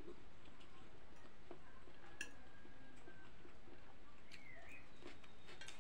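Close-up eating sounds of spicy instant noodles being slurped and chewed, with a few small clicks of a spoon and fork. A bird chirps briefly a little past four seconds in.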